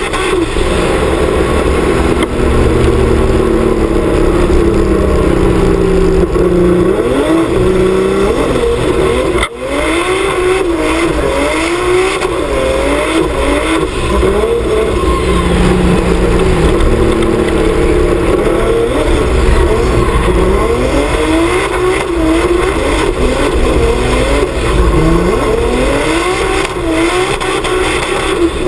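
A turbocharged BMW E30 with its M50 straight-six engine is being driven hard in a drift. The revs swing up and down every second or so as the throttle is worked, with a brief lift about nine and a half seconds in. Heavy wind rumble covers the camera mounted outside on the body.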